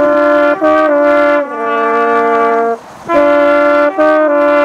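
French horn and trumpet playing a duet in two-part harmony: a short phrase of four held notes ending on a long one, a brief break, then the same phrase again.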